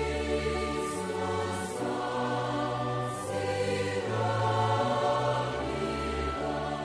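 A choir singing slow, held chords, with the harmony changing every second or so.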